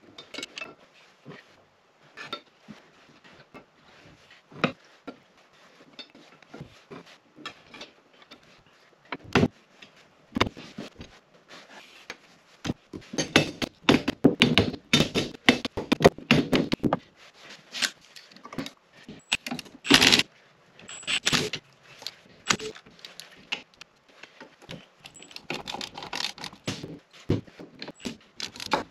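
Small metal parts and hand tools being handled on a wooden workbench while an electric motor is reassembled: irregular clinks, taps and knocks with rustling. The sounds come thickest a little past the middle.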